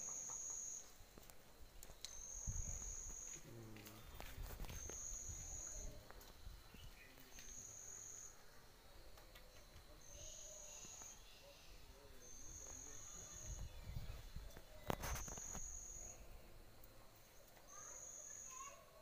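An insect calling in regular pulses: a high, steady buzz about a second long, repeating every two and a half seconds, with soft low rumbles and thumps underneath from puppies wrestling.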